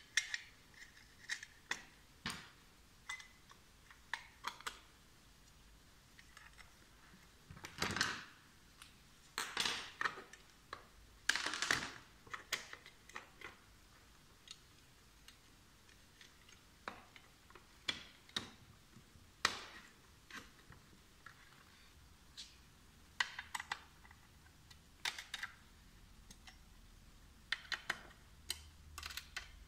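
Aluminium snap frame profiles and corner pieces being handled and fitted together by hand: irregular light metal clicks and knocks, with a few longer scraping slides about a third of the way in.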